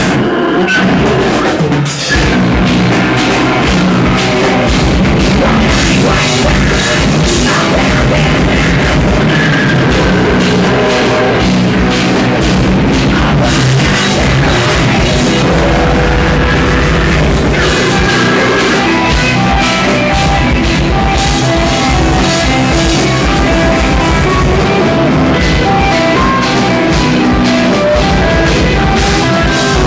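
Heavy metal band playing live and loud: distorted electric guitars and bass over fast, driving drums, with a brief break about two seconds in.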